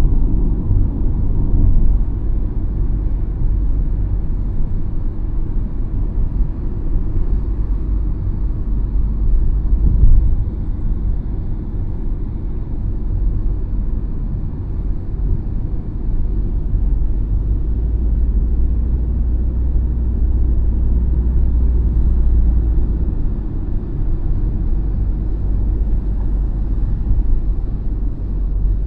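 Steady low rumble of tyre and road noise heard inside a car moving along a highway, with a brief louder thump about ten seconds in.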